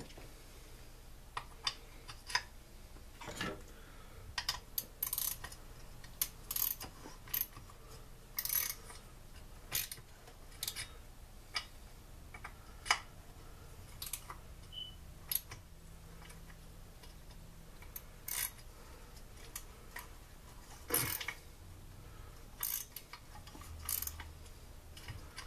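Hand tools and metal engine parts of a Stihl SR 420 backpack blower clicking, clinking and knocking on a workbench as the engine is taken apart. The clicks come irregularly, with a few louder knocks.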